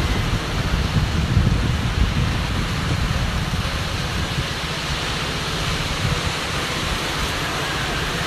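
Wind buffeting the microphone: a steady rushing noise with an uneven, gusty low rumble.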